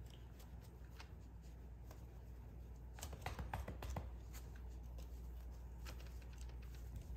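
A hand patting and rubbing an Abyssinian cat's fur: soft rustling with light, quick pats, thickening into a brief flurry of pats about three seconds in.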